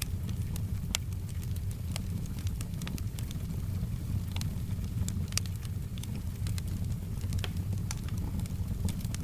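Wood fire crackling, with sharp irregular pops and snaps a few times a second over a steady low rumble.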